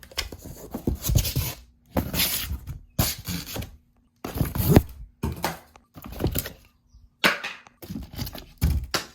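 Firework packaging being torn open and handled: a string of short rustling, tearing and crinkling bursts with brief silent gaps between them, over a faint steady hum.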